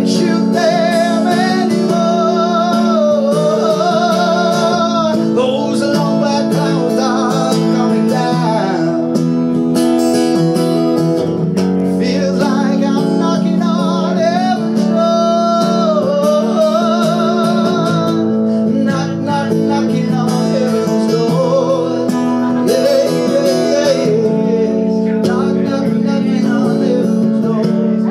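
A man sings long, wavering phrases with vibrato over a strummed acoustic guitar.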